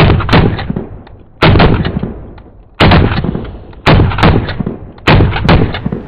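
Handgun gunshots from a 9mm and a .45, heard as slowed-down booms: five shots about 1.2 s apart, each followed by a long fading rumble.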